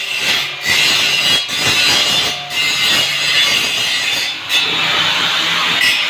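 Angle grinder grinding steel, a steady harsh rasp broken by a few short lifts of the disc.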